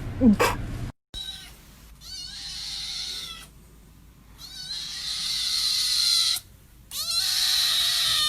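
A domestic cat calling several times in long, harsh, breathy yowls, with a short call just before a brief gap about a second in.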